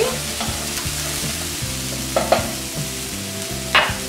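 Diced onion, celery, mushrooms and walnuts sizzling in a nonstick frying pan as they are stirred with a spatula.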